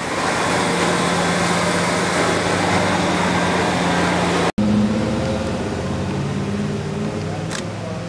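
A motor engine running steadily under a rush of broad noise, like nearby vehicle traffic. The sound cuts off abruptly about halfway through and gives way to a quieter, steady low engine drone, with a short hiss near the end.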